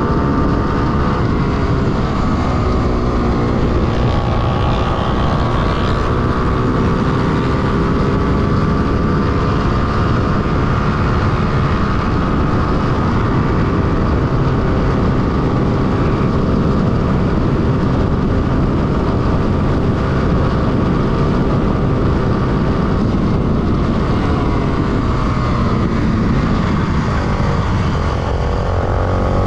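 Honda XR250 Tornado supermoto's single-cylinder four-stroke engine running hard at high revs, heard from onboard. The pitch falls near the end as the bike slows into a corner.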